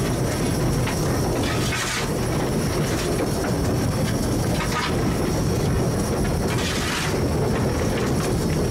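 Southern Railway S15 class 4-6-0 steam locomotive No. 847 running along the line, heard from its footplate: a steady rumble and rattle of the engine and wheels on the track. Two brief rushes of higher noise come about two seconds in and again about seven seconds in.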